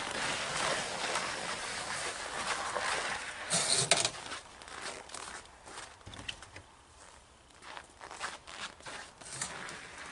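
Boots crunching over snow and a wheelbarrow of firewood being pushed, with a sharp knock about four seconds in, then quieter scattered clicks and bumps as the barrow is worked through a doorway.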